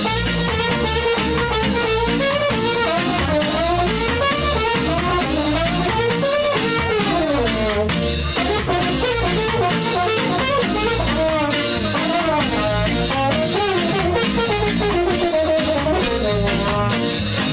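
Ska band playing live: a horn section of saxophone, trumpet and trombone over a drum kit with a steady beat, one horn line winding up and down.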